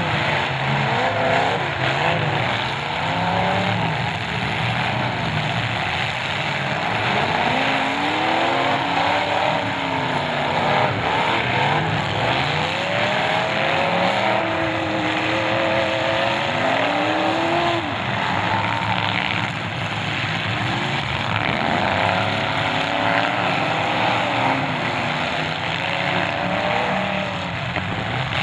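Many demolition derby cars' engines revving at once, their pitches rising and falling over and over as the cars accelerate, back up and ram one another, over a steady din of engines.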